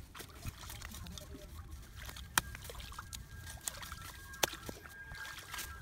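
Muddy paddy water sloshing and trickling, with scattered small clicks and two sharp clicks about two seconds apart. A faint steady high tone runs through the second half.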